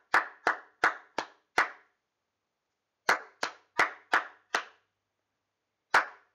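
Hands clapping a rhythm pattern read from rhythm cards. There are two runs of five quick claps, separated by a silent gap of about a second and a half, then a single clap near the end. The gaps are the rests ("sh") in the pattern.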